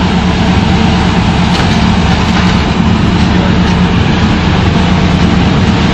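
Loud, steady vehicle engine rumble with a constant low hum, unchanging throughout.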